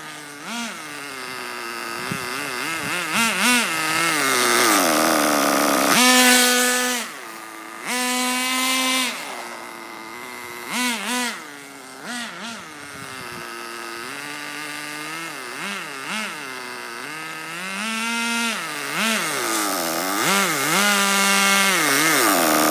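Nitro RC car's small glow-fuel engine revving up and down again and again, with a high buzzing whine held for a second or so at a time and dropping back between bursts.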